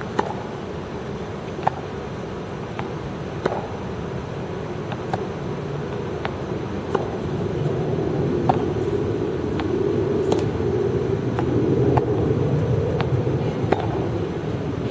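Tennis balls being struck by rackets and bouncing on the court during a feeding drill, sharp pops about once a second, over a steady low rumble of background noise.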